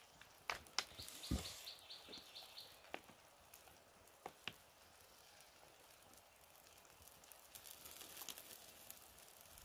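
Quiet outdoor ambience with scattered light clicks and taps as wooden chopsticks, a bamboo tube and a plastic bowl are handled over a wood-fire grill, plus one soft low thump. About a second in there is a brief high-pitched trill of quick, even ticks.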